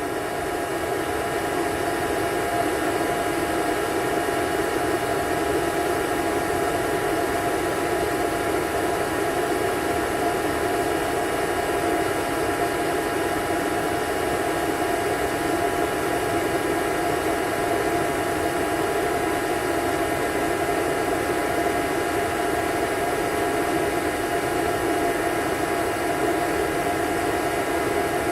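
Vacuum cleaner running steadily: a continuous rush of air under a constant motor whine. It grows a little louder over the first second or two, then holds even.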